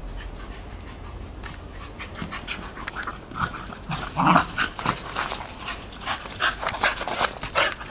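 A Lakeland terrier and a Plummer terrier pup play-fighting, making short growling and yapping noises, loudest about four seconds in, among a run of short sharp clicks.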